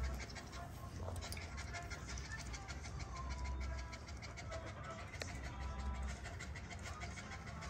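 XL pitbull puppy panting with its mouth open close to the microphone, with a low rumble of fur and hands rubbing against the phone.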